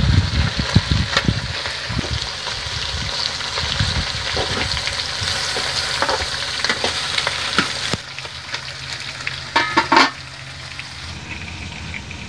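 Free-range chicken frying in oil in a large aluminium pot as a metal spoon stirs and scrapes through it, then okra sizzling in a frying pan as it is stirred. The sizzling drops off sharply about eight seconds in, and a brief clatter of metal follows about two seconds later.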